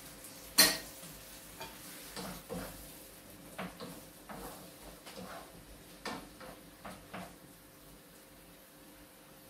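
A kitchen utensil knocking and scraping against a frying pan as green beans and sausage are stirred: one sharp clack about half a second in, then about a dozen short knocks and scrapes that stop after about seven seconds.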